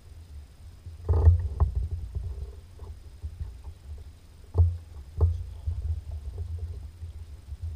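Knocks and bumps against a fishing kayak as the angler shifts in the seat and works the rod: a cluster of sharp knocks about a second in, then two more a little past the middle, over a steady low rumble.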